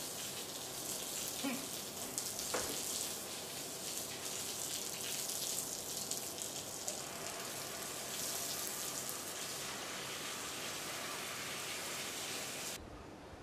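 A steady, high hiss with a fine crackle throughout, which cuts off suddenly near the end.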